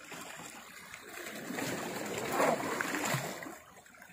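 Seawater lapping and splashing against shoreline rocks, swelling louder in the middle.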